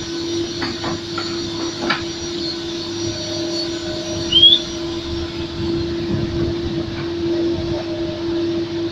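Heavy diesel machinery running steadily, a constant engine hum with a strong steady tone. There are a few faint knocks in the first couple of seconds, and a short rising squeak about four and a half seconds in.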